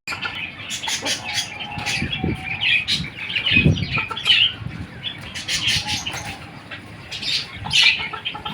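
A flock of Silkie chickens clucking and chirping in many short overlapping calls, with a couple of low thuds about two and three and a half seconds in.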